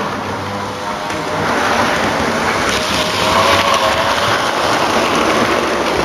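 Model train running on the layout's track: a steady rumble of wheels on rails with a faint wavering motor whine, growing louder from about a second in as it approaches.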